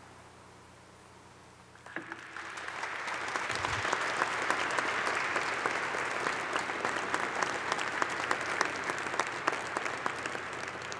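Congregation applauding: the clapping starts suddenly about two seconds in after low room tone, stays strong and dense, then begins to thin out near the end.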